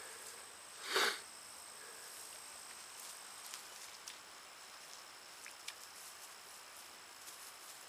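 Quiet outdoor ambience with a faint steady high-pitched insect drone and a few light clicks; about a second in, one short loud rush of noise.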